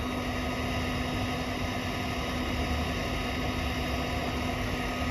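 LV-02 BGA rework station running at its reflow temperature: the hot-air blower and fans give a steady noise with a constant low hum.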